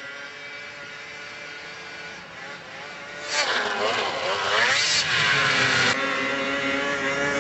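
Snowmobile engine running steadily at a lower level, then getting louder about three seconds in with its pitch swooping down and up as it revs, and settling into a steady, higher drone from about six seconds.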